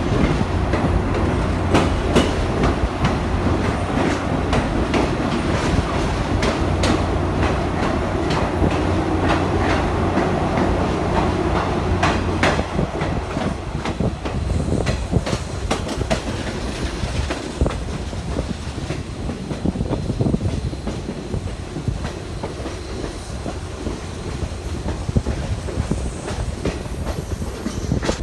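A train running on jointed rail, its wheels clicking over the rail joints with a steady low rumble underneath. The rumble eases a little about halfway through while the clicks go on.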